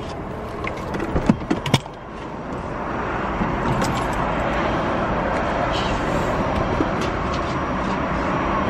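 Road and engine noise inside a moving car's cabin, an even rush that grows louder about two seconds in and then holds steady. A few knocks and clicks sound in the first two seconds.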